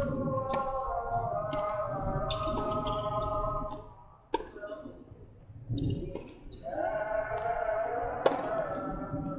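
Tennis ball being struck by rackets and bouncing on a hard court during a rally: sharp pops spaced a second or more apart. The two loudest come about halfway through and near the end.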